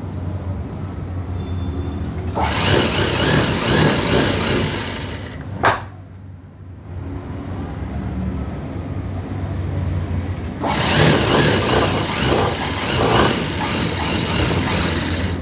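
Industrial sewing machine stitching in two runs: the first from about two seconds in for about three seconds, the second from about eleven seconds on. A sharp click comes just after the first run stops, and a steady low hum lies underneath throughout.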